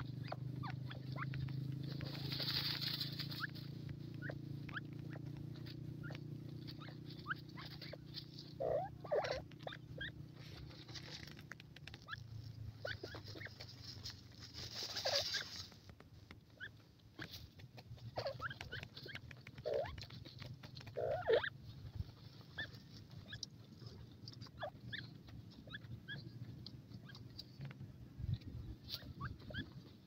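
Faint, scattered soft clucks and scratchy rustles from grey francolins crouched in a hollow of loose soil. Two brief hissing rushes come about 2 and 15 seconds in, and a low hum runs under the first dozen seconds.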